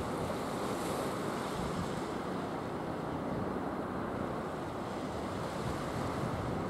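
Steady wash of surf on a beach, with wind rumbling on the microphone.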